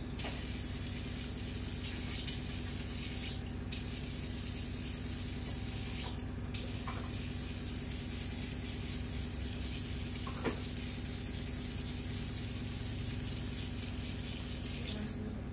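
Steady high hiss, dropping out briefly twice.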